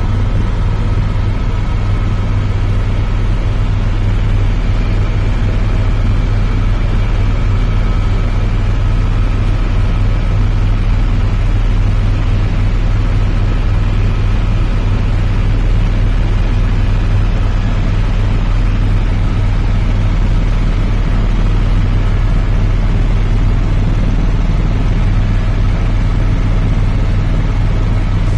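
Helicopter in flight, heard from inside the cabin: a loud, steady drone of rotor and engine, deep hum underneath with a faint higher whine.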